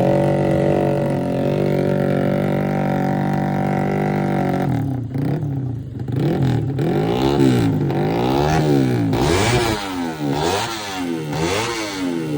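Drag-racing motorcycle's single-cylinder four-stroke engine held at high revs for a few seconds. It then drops and is blipped up and down over and over, about once a second.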